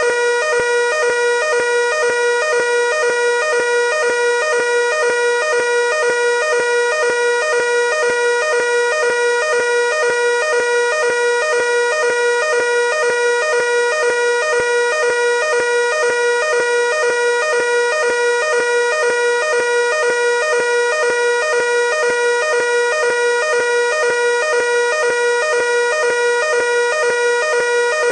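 Fire alarm evacuation signal: an electronic sounder giving a loud, shrill tone pulsing rapidly and without a break, the signal to evacuate the building.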